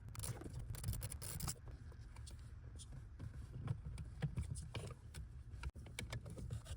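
Light clicks, taps and scrapes of plastic parts being handled under a vehicle dashboard, over a steady low hum.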